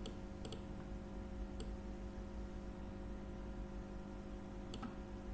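A few sharp computer-mouse clicks, about four, with a longer gap in the middle, over a faint steady electrical hum.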